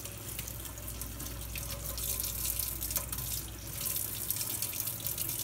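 Kitchen faucet running steadily into a stainless steel sink, the water splashing over a roasted green chile as it is rinsed and peeled by hand.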